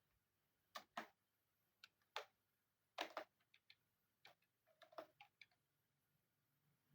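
Faint, irregular sharp clicks and taps, about a dozen spread over several seconds, from hands working on the parts of an all-in-one desktop computer.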